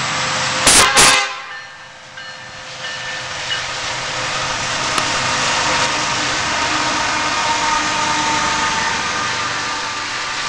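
Two loud knocks about a second in, then a freight train rolling by in a steady loud rush of wheels on rail.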